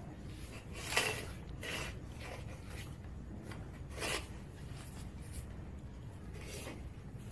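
A few short rustling, scraping noises, the loudest about a second in and others near four and six and a half seconds, over a low steady hum.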